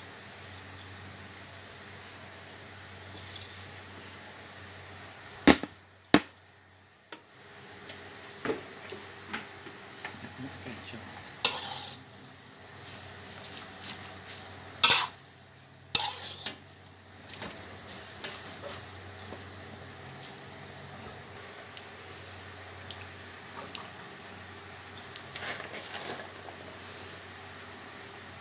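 Rice vermicelli being stir-fried in a wok: a low steady sizzle, with a metal spatula scraping and knocking against the wok in several sharp clanks.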